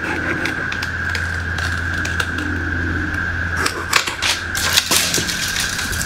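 Cicada chorus droning steadily at one high pitch, with a low steady hum beneath it. From about three and a half to five seconds in comes a cluster of sharp snaps and crackles as dead twigs and branches are broken off in the tree canopy.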